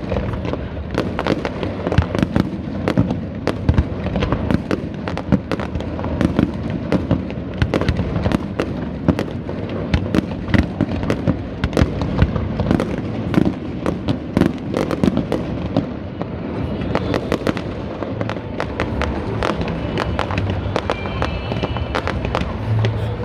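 Fireworks display: a dense, continuous run of bangs and crackles from shells bursting several times a second.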